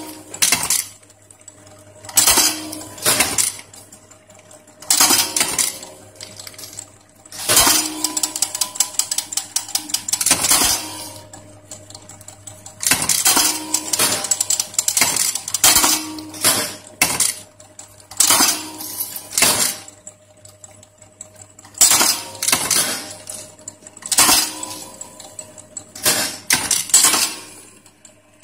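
Metal tipping machine crimping metal tips onto shoelace ends: sharp metallic clacks at irregular intervals of a second or two, some longer and noisier, over a steady low hum.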